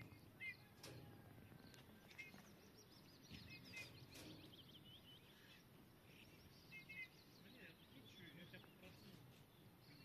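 Faint bird calls: short paired chirps several times, and a run of quick high wavering notes partway through.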